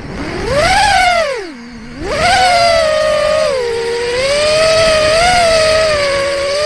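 Brushless motors and Gemfan 4052 propellers of a 4-inch FPV quadcopter whining, picked up by a camera on the drone. The pitch climbs about a second in, drops steeply as the throttle is cut, surges back up near the two-second mark, then holds fairly steady with small rises and dips as the pilot works the throttle.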